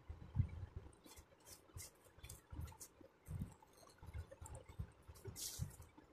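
Faint crisp rustling of thin sheer fabric and soft low bumps of handling as the excess around an embroidered patch is trimmed with a corded hot-knife cutter, with a louder rustle about five and a half seconds in.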